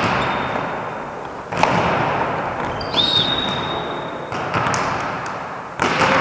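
Volleyball rally in a large hall: the ball struck about five times, roughly every second and a half, each hit echoing in the gym. A thin, steady high tone lasts about a second in the middle.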